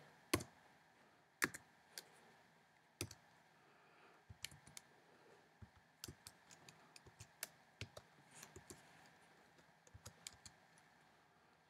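Computer keyboard being typed on: faint, irregular key clicks, with a few louder keystrokes in the first three seconds and quicker, lighter ones after.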